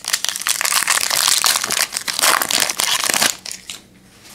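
Foil wrapper of a Panini Prestige trading-card pack crinkling as it is torn open, a dense crackle for about three seconds that then stops.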